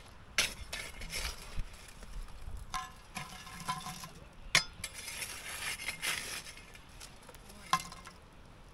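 Metal clinks and knocks from a camp oven and its lid being handled over the fire. There are sharp knocks near the start, halfway through and near the end, a short ringing clink about three seconds in, and some scraping in between.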